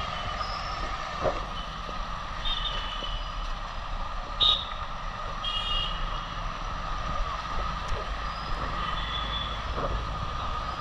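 Motorcycle engine running steadily under street traffic noise on a wet road, with short high-pitched beeps from traffic about a quarter of the way in and again about halfway, and a single sharp click in between.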